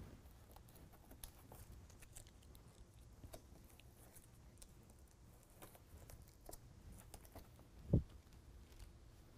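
Faint scattered rustles and small clicks of hands pressing small hook-and-loop fastener pieces onto the fabric edge of a truck bed mat, with one dull low thump about eight seconds in.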